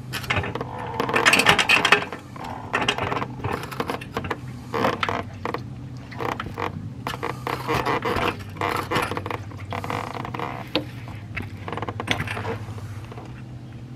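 Hydraulic floor jack being worked under a motorcycle's rear suspension linkage: irregular metallic clicks, creaks and scrapes, loudest about a second in, over a steady low hum.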